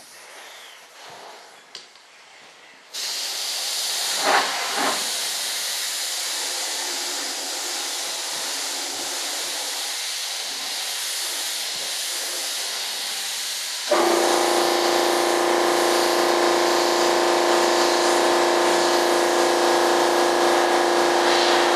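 Steady hiss of compressed air that starts suddenly about three seconds in, as from a paint spray gun. About eleven seconds later a motor, typical of an air compressor, starts with a steady hum and keeps running under the hiss.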